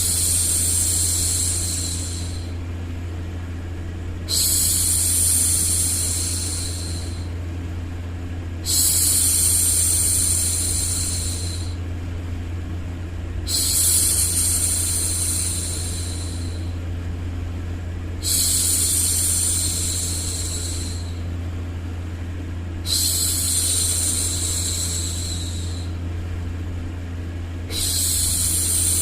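A woman's voice shushing a long 'shhh' to hush a baby, over and over: each hush lasts about two and a half seconds and comes roughly every four to five seconds. Under it runs a steady low hum of white noise.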